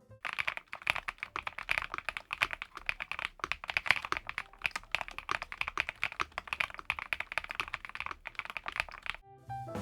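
Fast, continuous typing on the ATK VXE V75PRO, a gasket-mounted 75% mechanical keyboard with an aluminium top cover and PBT double-shot keycaps: a dense run of quick keystroke clicks that stops a little before the end.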